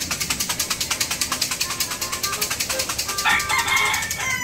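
A rooster crows once, for about a second, starting about three seconds in, over a steady, fast, high-pitched pulsing hiss.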